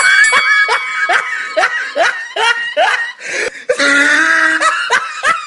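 Laughing sound effect: a run of short laughing syllables, each rising in pitch, about three a second, then a longer held voiced stretch and a few more short laughs.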